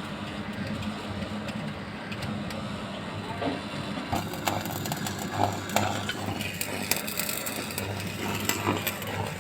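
A machine engine running steadily on a construction site. From about four seconds in, sharp knocks and clatter from the work come in over it.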